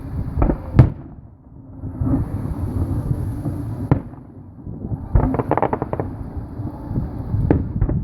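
Aerial fireworks going off: sharp bangs, the loudest just under a second in and others about four seconds in and near the end, with a burst of rapid crackling around five seconds in, over a steady low rumble.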